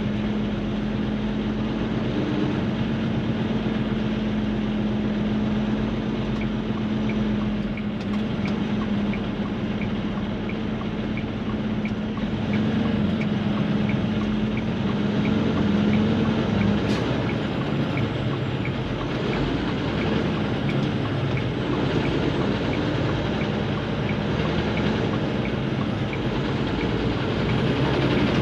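Steady engine and road drone heard from inside a moving vehicle's cabin on a freeway, with a low hum that drops in pitch a little past halfway. A faint, regular ticking about twice a second runs alongside.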